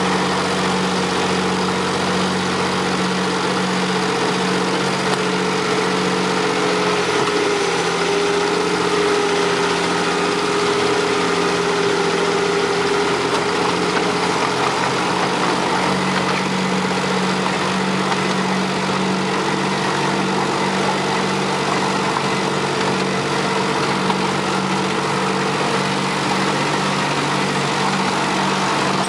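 The engine of a 7¼-inch gauge miniature GP40 locomotive running steadily as it hauls the train, a continuous drone with an even rushing noise of the running train over it.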